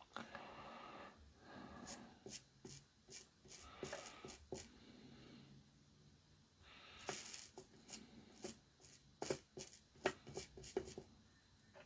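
Hands working on small parts at a workbench: scattered light clicks and taps with soft rubbing, the clicks coming more often after about seven seconds.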